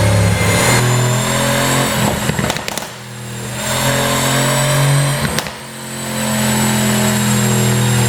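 Mercedes-AMG C63 twin-turbo V8 revved and held, then dropping off with a short burst of exhaust pops and crackles as the throttle closes. This happens twice, the revs building again after each. The pops come from an exhaust pop-and-crackle tune.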